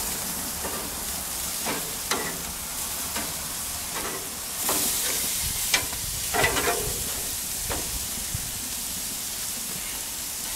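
Maple-glazed back bacon sizzling on a barbecue grill, with several sharp clicks and scrapes of metal tongs against the grate as the pieces are turned, mostly in the first two-thirds.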